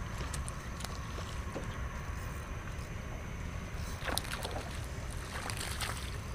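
Low wind rumble on the microphone over water moving around a small boat, with a few faint clicks.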